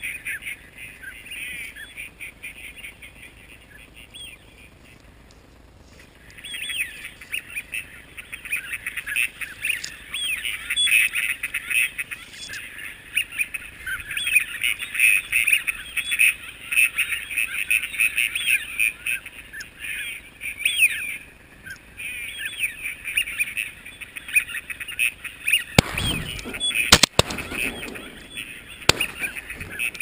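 Many birds calling at once in a dense, continuous chatter of short calls, thinning out briefly between about four and six seconds in. Near the end a brief rustle and a sharp knock.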